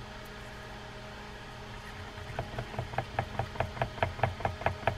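A steady run of small sharp clicks, about seven a second, starting about two seconds in, as the handle hold-down screw of a Shimano Tyrnos 10 lever-drag fishing reel is driven in with a screwdriver.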